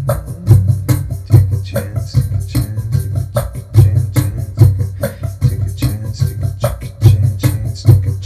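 Acoustic guitar played hard and rhythmically, an instrumental stretch of a song with a driving percussive beat and strong accents about every three quarters of a second.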